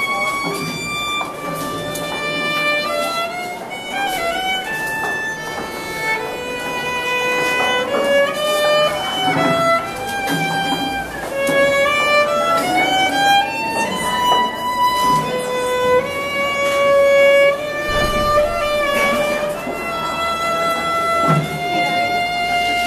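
Solo violin playing a slow melody, with held notes and slides between them.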